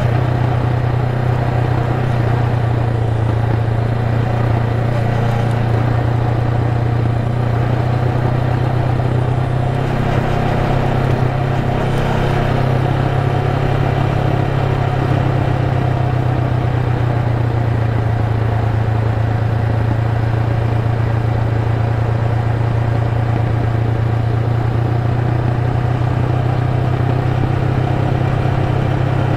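Honda Rebel 500's parallel-twin engine running at a steady cruise, holding one even note with no gear changes, over a haze of road noise.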